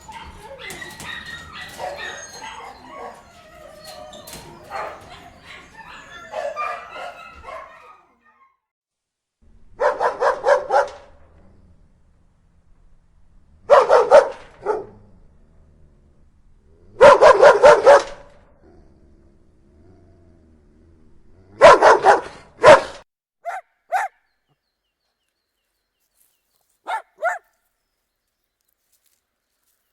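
Dog barking loudly in separate bursts of several quick barks with pauses between them, then a few short single barks near the end. The first several seconds hold quieter, jumbled sound before the barking starts.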